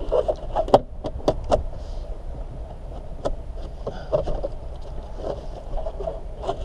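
Gloved hands pulling and flexing a van's foam-backed headliner and fibreboard trim panel: rustling with scattered sharp clicks and knocks, several in quick succession in the first second and a half, over a steady low rumble.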